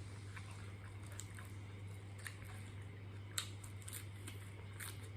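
A person chewing and biting food, with short sharp crunches about once a second, over a steady low hum.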